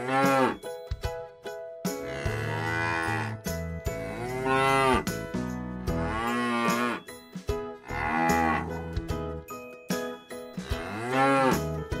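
Cattle mooing again and again: about six long moos, each rising then falling in pitch, over light background music.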